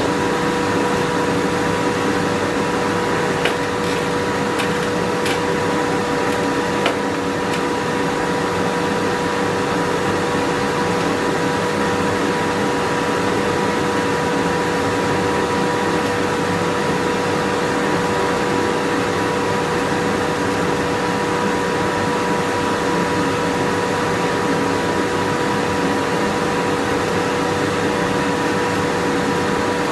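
A forge running steadily: a constant rushing noise with a steady hum. There are a few faint clicks about four to seven seconds in.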